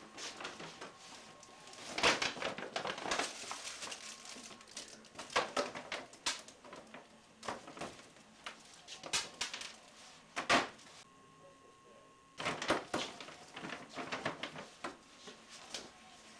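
Paper crinkling and rustling, with clicks and knocks as a wrapped gift and a paper gift bag are handled on a counter, in irregular bursts with a short lull about two-thirds of the way through.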